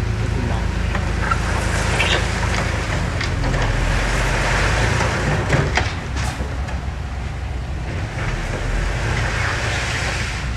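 Diesel engine of earthmoving machinery running steadily under load, with a few sharp metallic clanks.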